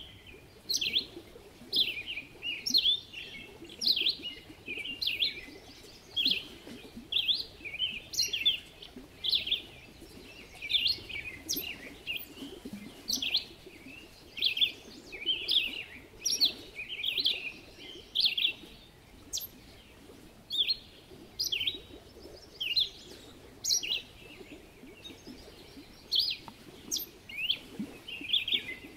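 Bird chirping steadily: a continuous run of short, high chirps that drop in pitch, one or two a second.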